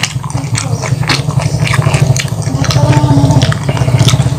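Close-up chewing and biting of battered fried chicken and rice coated in chili sambal, with many short sharp mouth clicks and crunches, over a steady low hum.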